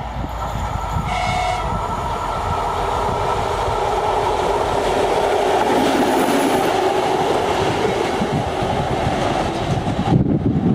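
M62M-001, a modernised M62 'Gagarin' diesel locomotive, running light past at speed: engine noise and wheels on the rails build to loudest as it passes, then fall away. A short high horn toot comes about a second in, and near the end the sound changes abruptly to wind buffeting.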